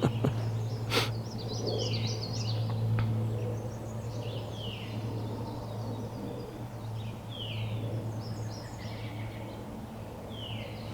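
Songbirds singing, several repeated short high phrases that sweep downward, over a steady low hum, with a single sharp click about a second in.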